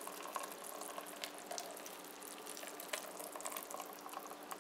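Hot caramel glaze of melted sugar and margarine sizzling with faint, scattered crackles as it is poured from a pan into a greased bundt pan.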